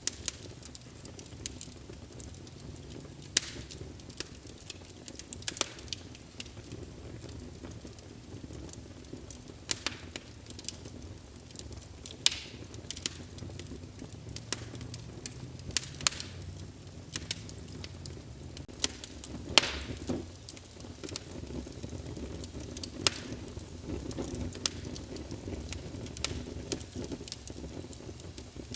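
Wood fire crackling in a fireplace: irregular sharp pops and snaps over a steady low rumble of the burning logs.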